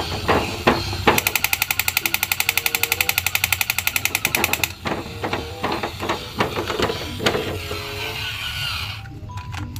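Battery-operated crawling soldier toy with a rifle: its motor and plastic gears clatter as it crawls. About a second in, its speaker fires a rapid electronic machine-gun sound effect, about a dozen shots a second, which stops suddenly after some three and a half seconds.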